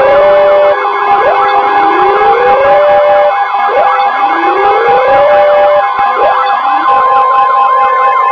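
Warning sirens wailing in layers, a rising sweep about every two and a half seconds that holds its top pitch briefly and then breaks off, over several steady alarm tones.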